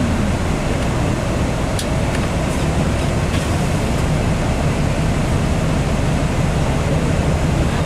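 Inside the cabin of a 2016 MCI D4500CT coach running on compressed natural gas: its Cummins Westport ISX12 G engine runs steadily under the rumble of tyres and road, a constant heavy low noise.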